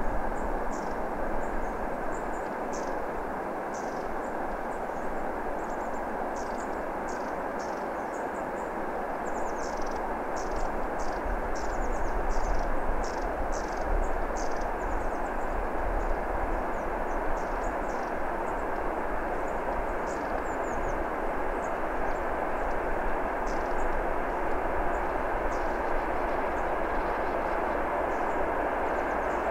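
Distant drone of a 2TE10MK twin-section freight diesel locomotive's Kolomna 5D49 V16 engines working under load as it approaches with its train, steady with a low rumble. Short high-pitched chirps sound over it, thickest around the middle.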